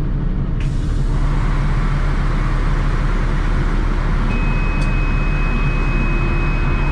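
NEFAZ 5299 city bus engine idling with a steady low rumble. About half a second in, a steady hiss sets in and carries on, and about four seconds in a single high, steady beep sounds for about two and a half seconds, stopping near the end.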